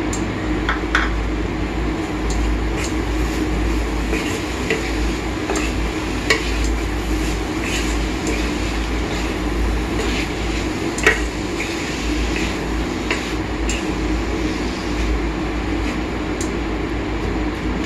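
Wooden spatula stirring and scraping crumbled paneer and vegetables around a metal kadhai, with scattered short knocks and clicks against the pan over a steady low hum.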